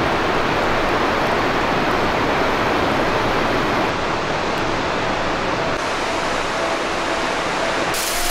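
Waterfall on a mountain creek: a steady, loud rush of falling water, its tone shifting slightly a few times.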